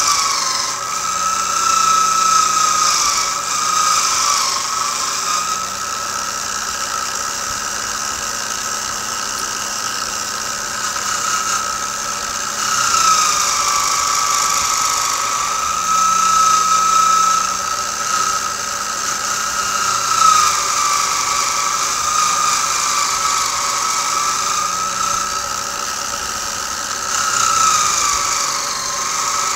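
Bench-mounted wire wheel running with a steady whine while a rifle's steel barrel and action are pressed against it. Each time the metal is pushed in, the motor's pitch dips and the wires scrub with a hiss. This is carding off loosened, converted rust ahead of rust bluing.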